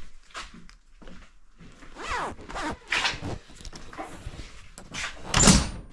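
Rustling and scraping of clothing against a chest-worn camera as the wearer moves, with several brief knocks; the loudest knock comes near the end.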